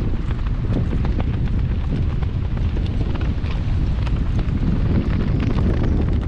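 Wind buffeting the microphone: a loud, steady low rumble that keeps fluttering, with faint scattered ticks over it.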